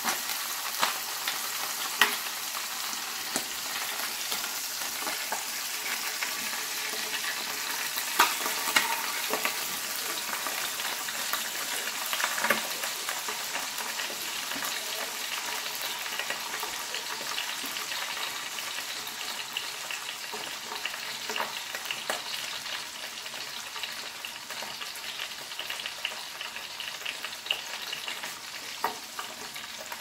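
Chicken pieces sizzling in butter in a cast-iron casserole on a gas burner as they brown: a steady frying hiss with scattered louder pops and crackles.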